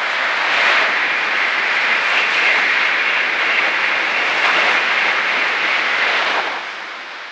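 Shinkansen 300 series bullet train passing at high speed: a loud, steady rush of noise that holds for about six seconds and falls away near the end as the tail of the train goes by.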